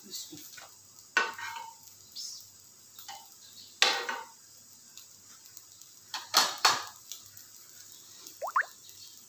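Slotted metal spatula scraping and knocking against a flat tawa griddle as omelette-coated bread slices are pushed around, in separate strokes: about a second in, near four seconds, and twice around six and a half seconds. A short rising squeak near the end.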